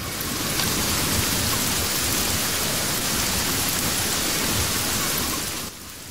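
Storm sound effect of heavy rain: a steady rushing noise that fades in over the first second and drops away just before the end.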